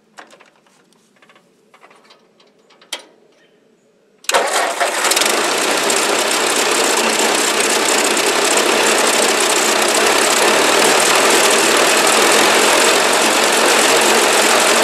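A few faint clicks, then about four seconds in the 1957 Ford 800 series tractor's four-cylinder engine starts at once and runs loud and steady, its exhaust still in need of repair.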